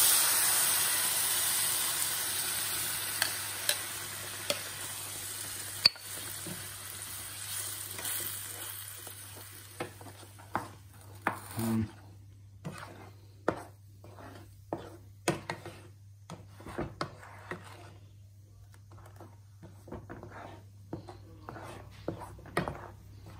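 Spinach puree hitting hot oil with fried onion and spices in a pan: a loud sizzle that dies away over about ten seconds. It is followed by a spatula stirring the thick puree, with short scrapes and taps against the pan.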